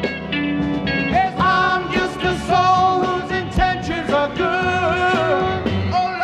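1960s blues-rock band playing, with voices holding long sung notes over electric organ and drums.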